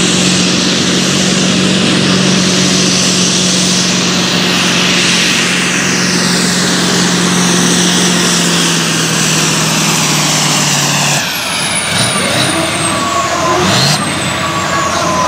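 Modified 7685 cc pulling-tractor engine at full throttle under load, a steady note with a high hiss, for about eleven seconds; then it drops off suddenly, and a high whistle falls away while the engine revs rise and fall.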